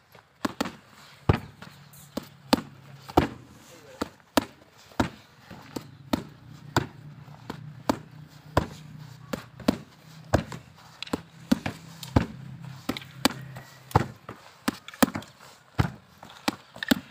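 Boxing gloves striking Thai pads in punch combinations: sharp slaps, two or three a second, often in quick pairs.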